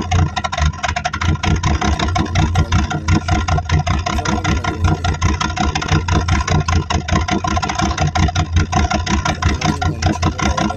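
Car engine idling, heard right at its twin exhaust tips: a steady, fast-pulsing exhaust rumble.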